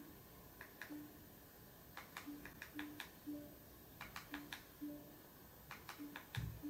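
Small plastic button clicks, often in quick pairs, as the AKASO C900 mini projector's menu is stepped through, each press answered by the projector's short low key beep, about nine beeps in all. A dull thump sounds near the end.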